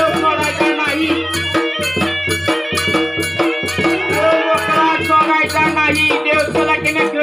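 Village folk music: a slung double-headed drum beaten with a stick in a steady beat, with jingling rattle-like percussion and voices singing over it.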